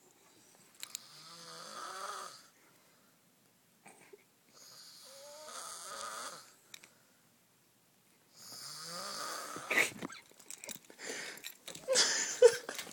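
Loud snoring: three long snores, each about two seconds with a rising pitch, a couple of seconds apart. Near the end comes a louder, irregular stretch of sound.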